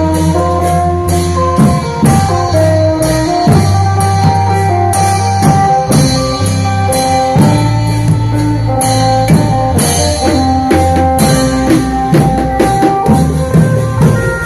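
Isan klong yao long-drum band playing a slow, swinging groove. Drum and percussion strokes land about twice a second under a plucked string melody and steady bass notes.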